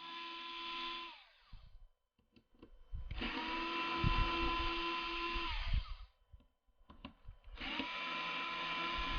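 A small power screwdriver backing out the screws from under the G36's foregrip, running in three bursts. The first burst ends about a second in, the second runs in the middle, and the third starts near the end. Each burst winds up to a steady whine and winds down again.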